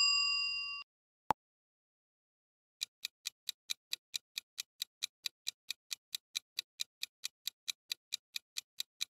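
A chime rings and fades at the start, a single click follows about a second later, then a clock-style ticking sound effect starts about three seconds in and runs steadily at about four ticks a second: a quiz countdown timer.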